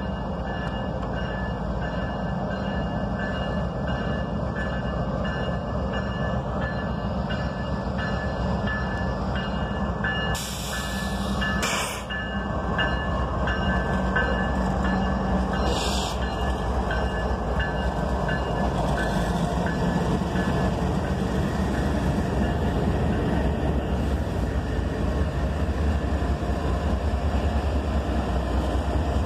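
Diesel locomotives at the head of a loaded coal train rumbling past close by, growing louder as the lead units go by, with the rolling of coal hopper cars starting near the end. Two brief bursts of hiss, about ten seconds in and around sixteen seconds.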